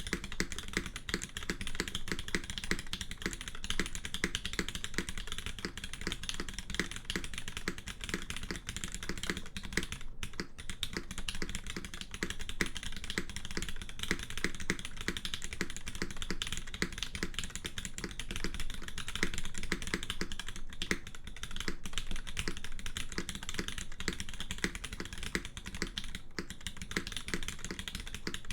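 Continuous fast typing on a custom aluminium-plate keyboard with GMK keycaps and lubed Cherry MX Ultraglide linear switches: a dense, unbroken run of full, rich clacks that are not too high-pitched.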